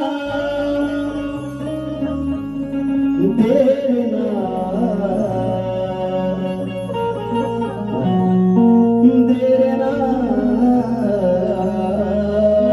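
A male singer performs a Shakti-tura gan, a devotional song to Ganesh, with sliding, ornamented vocal lines over sustained instrumental accompaniment that moves in held steps.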